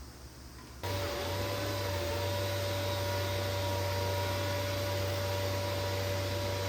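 A small electric motor tool switches on about a second in and runs steadily, with a low hum under a steady whine and a hiss.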